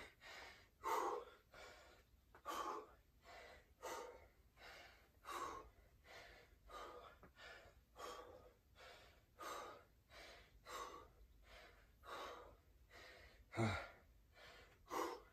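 A man breathing hard, winded from a set of dumbbell burpees: quick gasping breaths in and out, about three every two seconds, with one louder voiced gasp near the end.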